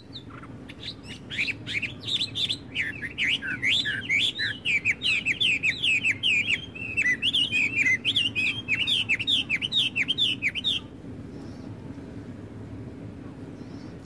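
Blackbirds chirping in a quick, dense run of calls that cuts off suddenly about eleven seconds in, over a steady low rumble.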